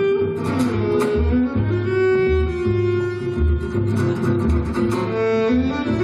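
Violin bowed in long held notes, some sliding up or down in pitch, over a low pulsing bass part.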